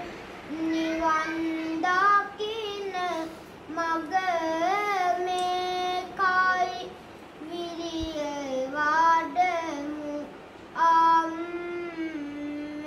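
A young novice Buddhist monk singing kavi bana, Sinhala Buddhist verse preaching, solo and unaccompanied. He sings long drawn-out melodic phrases with short breaks between them.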